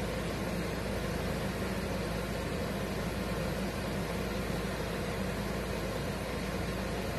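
Steady hiss with a low hum and no distinct knocks or impacts.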